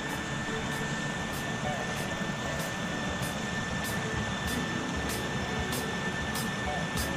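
Small mountain stream rushing over a rocky cascade, a steady rushing noise, with faint regular high ticks about twice a second.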